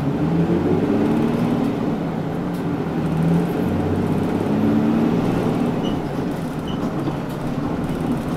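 Mitsubishi Fuso Aero Midi KK-MK27HM bus's diesel engine, heard from inside the cabin as the bus drives off. The engine note climbs and drops back several times as it shifts up through the gears, over steady road noise.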